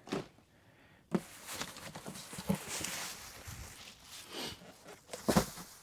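Cardboard model-kit boxes being handled and shifted: a few knocks, one about a second in and the loudest near the end, with rustling and scraping of cardboard between them.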